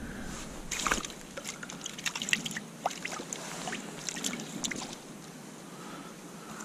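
A just-caught roach and fishing line being handled at an ice-fishing hole: light water dribbling and small irregular clicks and ticks, thinning out after about five seconds.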